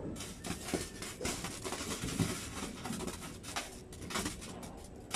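Ground firework burning, hissing and crackling with scattered small pops.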